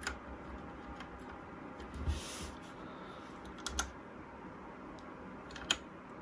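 A few separate key presses on a Trust GXT 865 Asta mechanical keyboard with red switches: sharp clicks near the start, about two seconds in, a quick pair near the middle and one more near the end.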